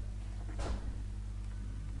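Laptop cooling pad's fan running with a steady low hum, with a brief rustle or handling noise a little over half a second in.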